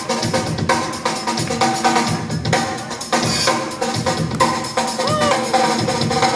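DJ-played breakbeat music: a steady drum-kit beat of bass drum and snare under pitched instruments.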